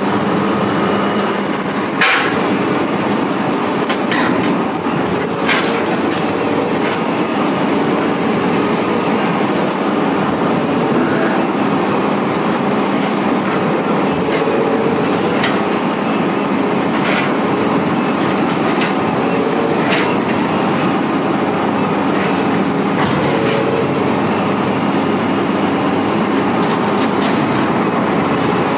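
Heavy diesel machinery running steadily, with sharp metal clanks every few seconds from scrap metal being handled.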